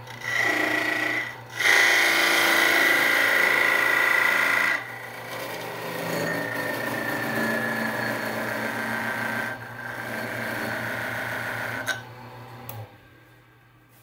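Wood lathe spinning a wooden box blank while a turning tool cuts into it in four passes, a loud scraping rasp with a high ringing tone. The lathe motor's steady hum stops near the end.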